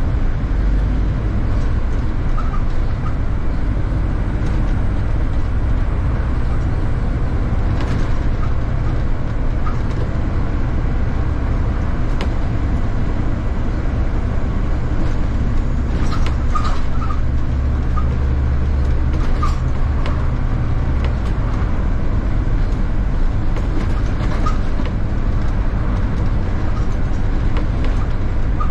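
City bus running in traffic: a steady low engine and road drone that swells a little past the middle, with scattered rattles, clicks and short squeaks.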